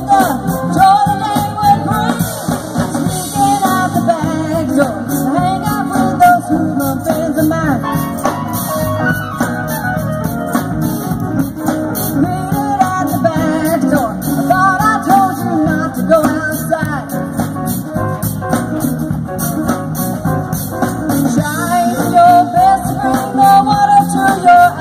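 Live band playing a song with amplified keyboards and guitar, a woman singing the lead over them.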